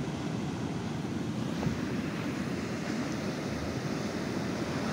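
Heavy ocean surf, waves of about two metres breaking offshore and foaming up the sand in a steady rush of water.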